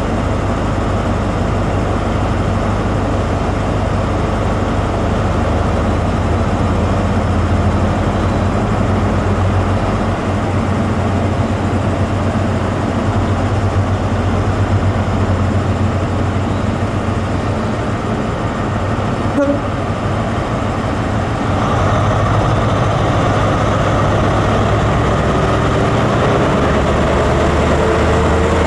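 Diesel train engine running with a steady low hum. A faint rising whine comes in over the last few seconds.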